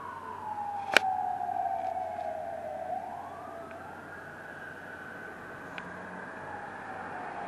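Emergency vehicle siren in a slow wail: the tone falls, rises again about three seconds in, then falls once more near the end. A single sharp click about a second in.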